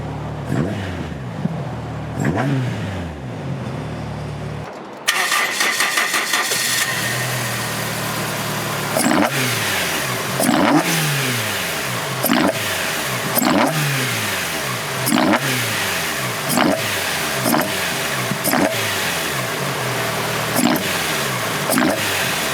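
Toyota AE86's small-port 4A-GE 16-valve four-cylinder with individual throttle bodies, revving with the throttle blipped. About five seconds in, the sound jumps to a louder, brighter recording of the engine. From there the revs rise sharply and fall back about every second and a half.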